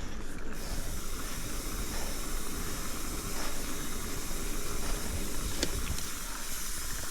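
Steady hiss of tyres and rushing air while riding a bicycle along a wet trail, with a faint sharp tick about five and a half seconds in.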